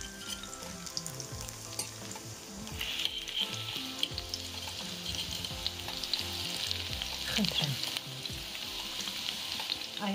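Zucchini fritters sizzling in hot oil in a frying pan, with a few light clicks of a fork and spatula against the pan in the first couple of seconds as they are turned. The sizzle grows louder about three seconds in.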